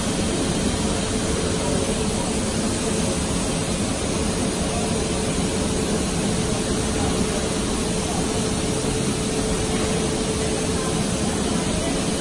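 Carpet overlock and conveying line running: a steady, dense machine noise without distinct knocks or pauses.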